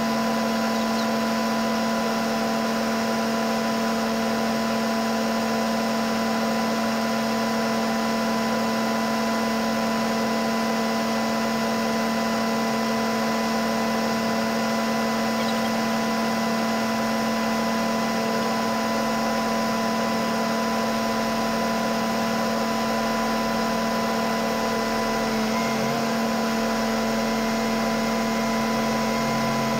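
Combine harvester running steadily with a constant mechanical hum carrying several steady tones, the sound of machinery at work in corn harvest.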